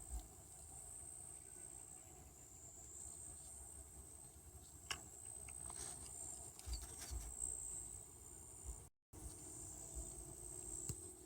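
Steady high-pitched drone of insects chirping, with scattered small clicks and low thumps. The sound cuts out completely for a moment about nine seconds in.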